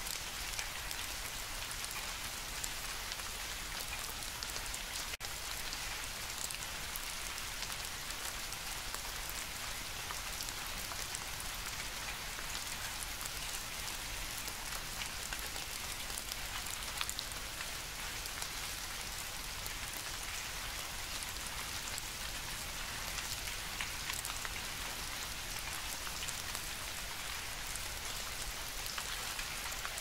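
Steady rain, a dense even hiss of falling water peppered with many small drop ticks.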